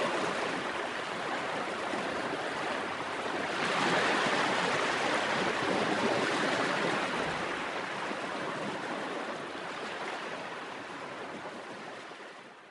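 Sea waves washing onto a beach: a steady rush of surf that swells about four seconds in and then fades out near the end.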